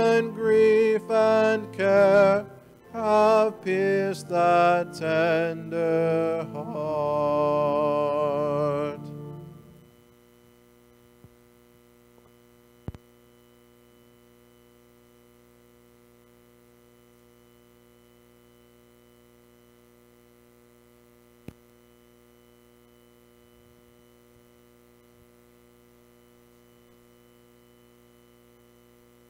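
A hymn being sung, ending on a long held note that fades out about nine seconds in. After it comes a steady electrical mains hum, with a sharp click about thirteen seconds in and a fainter one near twenty-one seconds.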